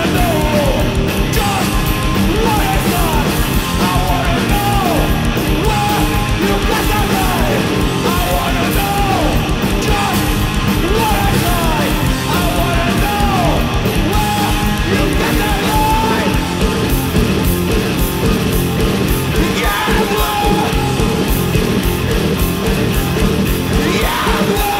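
Heavy rock played live by a guitar-and-drums duo: a loud electric guitar and a drum kit with crashing cymbals, with shouted vocals over them.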